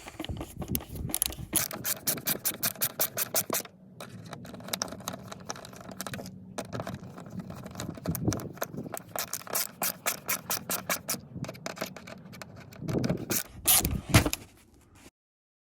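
Screwdriver driving Phillips screws into a replacement Stow 'n Go floor latch, making runs of quick, even clicks several a second with scraping, and a few louder knocks near the end as the screw is snugged down.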